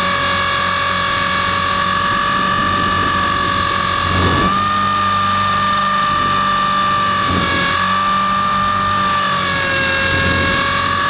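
Electric 450-size RC helicopter in flight, heard from a camera on its airframe: a steady high whine from the motor and drive gears over the low beat of the rotor, dipping slightly in pitch now and then. Brief whooshes of air come through about four and seven and a half seconds in.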